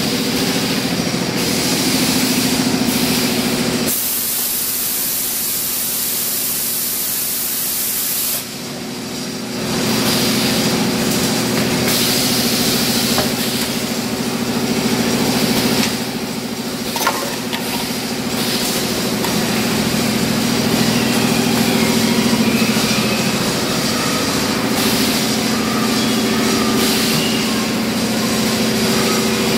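Automatic pneumatic PVC conduit pipe bending machine running: a steady machine hum under long hisses of compressed air, the loudest from about four to eight seconds in.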